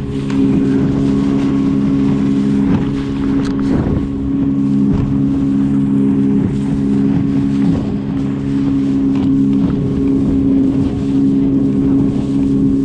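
Small tiller-steered boat motor running at a steady pitch, with wind buffeting the microphone.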